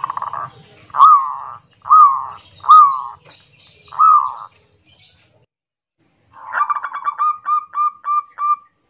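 Zebra dove (perkutut) singing: a rolling trill tails off at the start, then four separate rising-and-falling coos about a second apart. After a short pause comes a quick run of about eight short, clipped notes.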